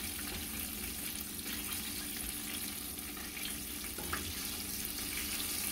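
Battered chicken pieces frying in a pot of hot oil: a steady, soft sizzle.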